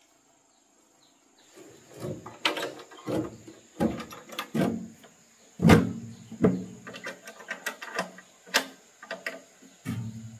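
Irregular metal knocks and clicks as a banana chopper's rusty sheet-metal hopper cover is handled and its toggle latch worked, starting about a second and a half in, with some ringing after the louder knocks.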